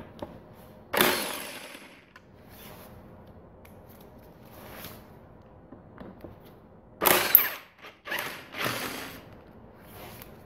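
Workshop tools at work: a few short, loud, rasping bursts, one about a second in and three more close together near the end, over a quiet background.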